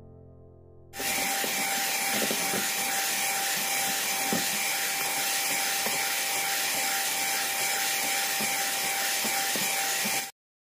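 Electric hand mixer running with a steady whine as its beaters whisk egg, sugar and emulsifier batter in a metal bowl, beating it pale and thick. It starts about a second in and cuts off suddenly near the end.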